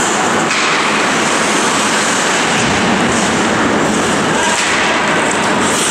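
Ice hockey game in play in an indoor rink: a loud, steady wash of noise from skates on the ice, with a few knocks from sticks and puck.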